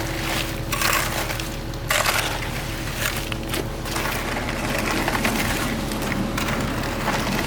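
Gritty crunching and scraping in several bursts over a steady engine hum, typical of building work with gravel or concrete.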